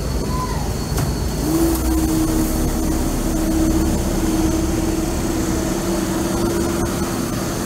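A motor running steadily over a low rumble, with a steady hum that comes in about a second and a half in.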